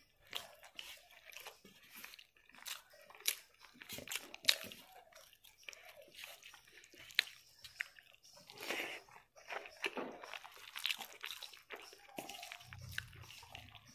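Close-up eating sounds: chewing and crunching with many small sharp mouth clicks, while fingers mix rice with crispy bits and curry on a steel plate.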